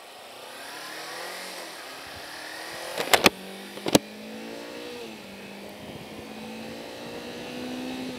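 Kawasaki Versys-X 300 parallel-twin engine accelerating, rising in pitch, dropping at a gear change about five seconds in, then rising again, with wind noise. Three sharp knocks about three to four seconds in are the loudest sounds.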